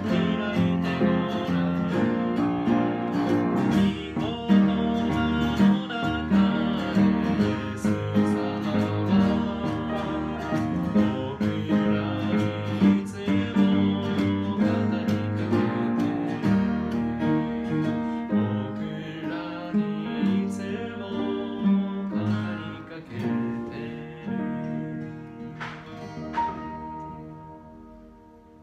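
A man sings a Japanese gospel song while strumming a steel-string acoustic guitar. Near the end the singing stops and the last chords ring out and fade away.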